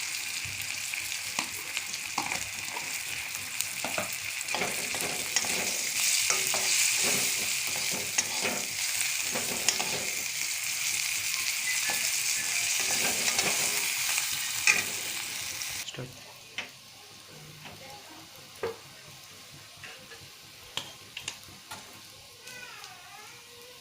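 Tomatoes frying in hot mustard oil in a pan, sizzling steadily while a spoon stirs them, with frequent clicks of the spoon against the pan. About 16 s in the sizzle drops off suddenly, leaving faint frying and occasional spoon taps.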